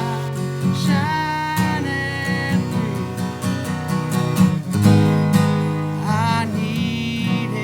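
Strummed acoustic guitar with a voice singing long, wavering notes over it.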